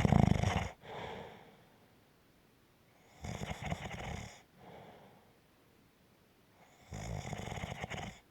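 A sleeper snoring in a slow, even rhythm: three snores about three and a half seconds apart, each followed by a softer breath out. The first and loudest snore is already under way and ends just under a second in.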